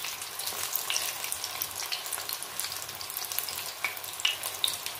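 Spring onion and spinach pakoras in gram-flour batter deep-frying in hot oil in a kadhai: a steady sizzling hiss full of fine crackles, with a few sharper pops near the end.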